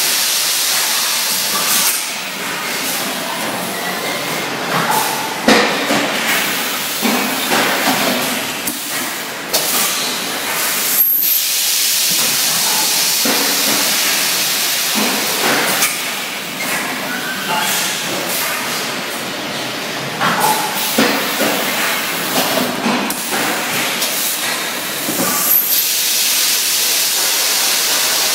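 A semi-automatic PET bottle blowing machine for 20 L bottles running: a steady air hiss that swells louder for several seconds at a time, with scattered knocks and clunks as preforms are handled.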